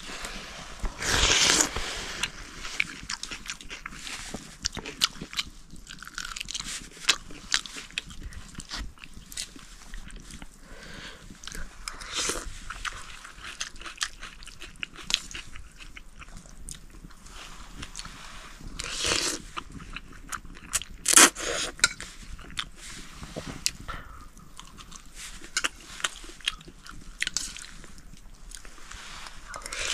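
People eating noodle soup: chewing with many small irregular clicks, and a few louder bursts about a second in and twice past the middle.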